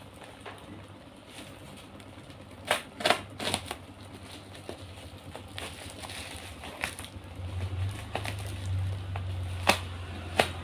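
Black plastic parcel wrapping crinkling and crackling as it is cut and pulled open with a blade, with a few sharp crackles in a cluster about three seconds in and again near the end.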